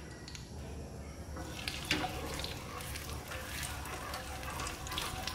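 Cooking oil heating for frying in a nonstick pan, crackling and sizzling in small ticks from about two seconds in as a wooden chopstick is dipped in and stirred through it. A low steady hum runs underneath.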